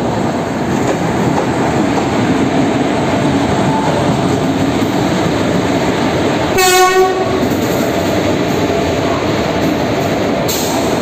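An express train rolling steadily into the platform close by. A little past the middle comes one short blast of an electric locomotive's horn as the locomotive passes, and the coaches roll on after it.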